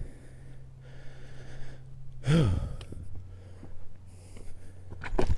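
A hiker breathing hard on a steep climb, close to the microphone. About two seconds in comes one loud voiced exhale that rises and falls in pitch, and a few sharp clicks follow near the end.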